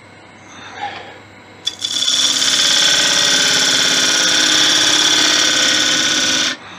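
Bowl gouge cutting the inside of a spinning wooden bowl on a lathe: a steady, loud shearing hiss of the cut that starts about two seconds in and stops sharply near the end.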